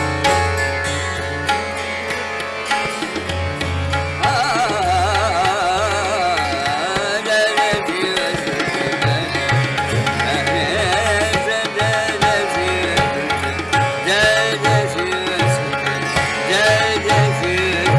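Hindustani classical khayal in Raag Gunkeli: a male voice sings ornamented, wavering melodic runs over a steady drone, with tabla beneath.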